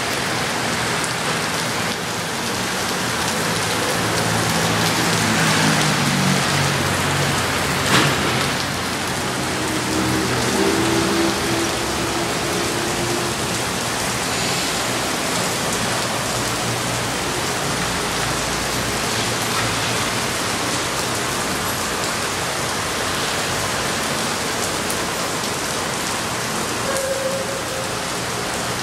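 Steady rain falling and pattering on surfaces, with a single sharp knock about eight seconds in.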